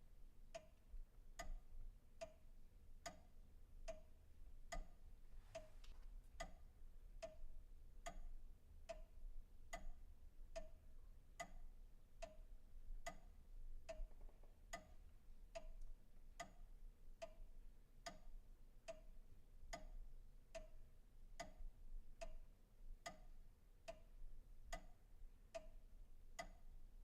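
A clock ticking steadily and evenly, a little faster than one tick a second, in an otherwise near-silent room.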